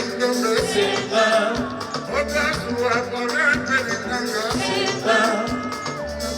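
Live Congolese rumba band music: a lead voice singing over a steady beat of about two drum hits a second, with bass and shakers.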